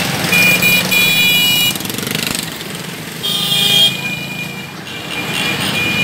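Motorcycle and jeep engines of a slow convoy running together, with vehicle horns honking in several long blasts: one near the start, a louder one around three to four seconds in, and a long one near the end.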